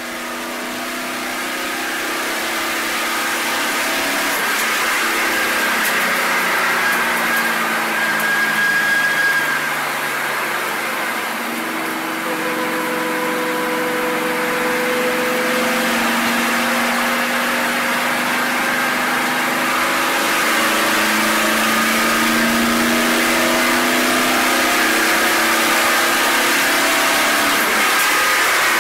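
Stock car's V8 engine running at speed on an oval, heard from inside the cabin, its pitch rising and falling slowly as the car goes around the track. It fades up over the first few seconds.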